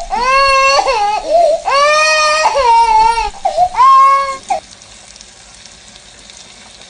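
Parrot mimicking a baby crying: four or five wavering, wailing cries over the first four and a half seconds, then only faint hiss.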